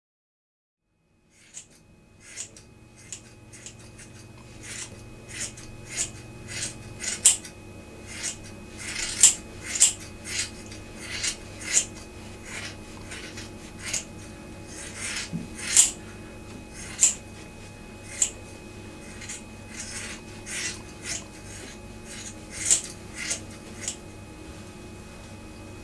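Scissors snipping hair: sharp snips at an uneven pace, about one or two a second, over a low steady hum. The snipping starts about a second and a half in.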